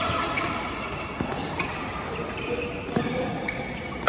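Doubles badminton rally in a large hall with several games going on: several sharp, irregularly spaced hits of rackets on shuttlecocks and short squeaks of shoes on the court mats, over a steady echoing background of play from other courts.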